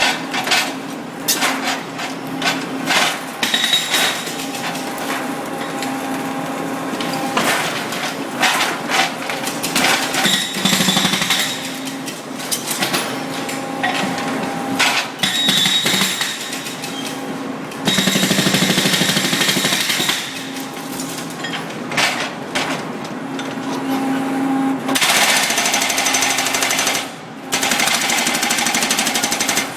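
Brokk demolition robot's hydraulic breaker hammering at rockwork in repeated spells of several seconds, with short pauses between them, over the steady hum and whine of the machine's hydraulic power pack.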